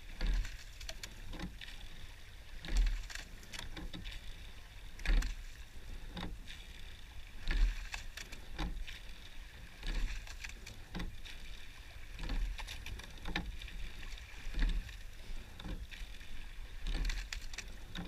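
Eight-oared racing shell under way: oars knock in their oarlocks and blades work the water in a regular stroke rhythm, a low thump and clunk about every two and a half seconds, with lighter clicks between strokes, over a steady hiss.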